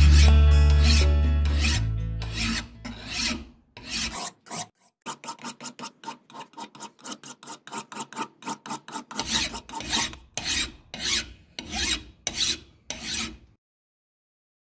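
A flat hand file scraping in strokes across the metal jaw of an old TNC vice. The strokes come quickly, about three or four a second, then slow to longer strokes near the end before stopping.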